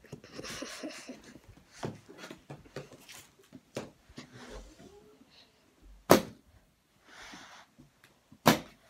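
Rustling and handling of a trombone case, then two sharp clicks about two and a half seconds apart near the end, the case's latches snapping open.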